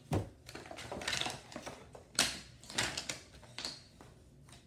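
Map puzzle pieces being handled and knocked together: a run of irregular clicks and clatters, the loudest about two seconds in.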